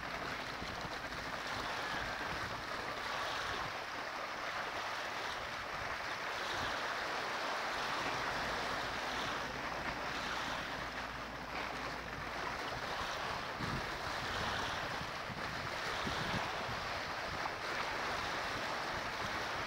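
Small waves washing and lapping steadily against a rocky shoreline, with wind gusting on the microphone in a few low thumps.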